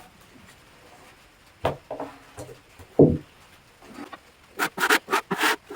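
Freshly sawn red oak slabs being handled: two solid wooden knocks, then a quick run of short scraping strokes against the wood near the end.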